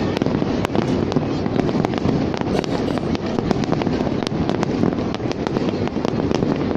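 Aerial fireworks display: a dense, continuous barrage of shell bursts and crackle, with sharp bangs several times a second.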